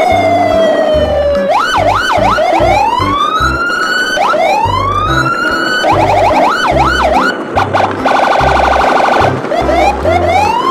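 Siren sounds over a steady thumping beat: a falling wail, then repeated rising sweeps and quick up-and-down yelps, with a stretch of fast warbling alarm-like pulses near the end. It is an edited soundtrack of emergency-siren effects laid over music.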